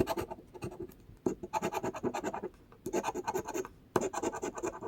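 Rapid scratching at the coating of a scratch-off lottery ticket, in about four quick bursts of strokes with short pauses between them.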